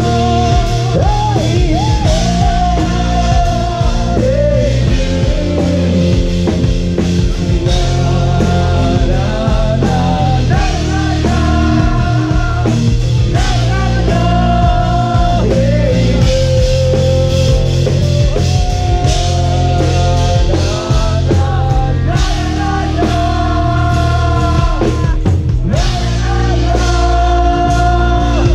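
Background music: a song with a sung melody over rock band accompaniment.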